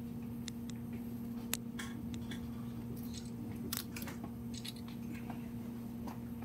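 Quiet signing room: a steady hum under scattered small clicks and rustles from pens, paper folders and camera shutters as agreement documents are signed.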